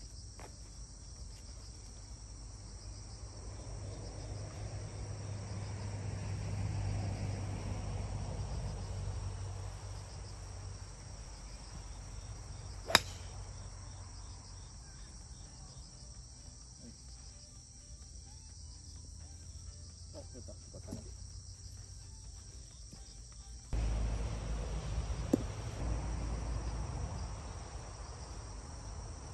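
A single sharp crack about halfway through as a TaylorMade M2 4-hybrid strikes the golf ball off the tee, over a steady high trilling of insects and crickets. A low rumble rises and falls, and jumps up suddenly near the end, where a smaller click follows.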